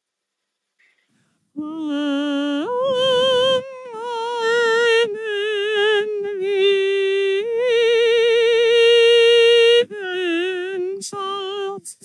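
Synthesized mezzo-soprano opera singing from an HMM-based singing synthesizer with a classical vocoder: a sung phrase of held notes with wide vibrato, starting about a second and a half in and stepping up in pitch about a second later.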